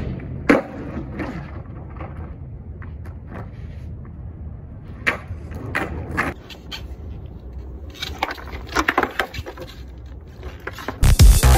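Skateboard rolling on rough asphalt with a steady low wheel rumble, and sharp clacks of the board hitting the ground: one about half a second in, several around five to six seconds in, and a quick cluster near eight to nine seconds. Electronic dance music cuts in loudly near the end.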